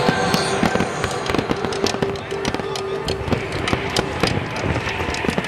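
Fireworks crackling and popping in a fast, dense run of sharp reports, with a few steady tones held underneath.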